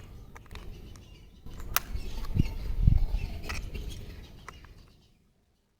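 Handling noise: scattered sharp clicks and low bumps and rumbles, busiest in the middle, then the sound cuts to silence near the end.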